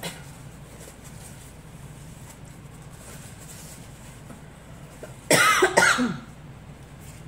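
A woman coughs twice in quick succession about five seconds in, with a napkin held to her mouth.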